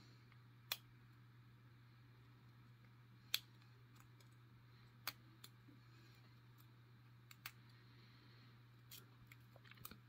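Faint, sharp metallic clicks of a lock pick working the pins of a brass Yale 5-pin padlock during single pin picking, scattered every second or two with a small cluster near the end, over a low steady hum.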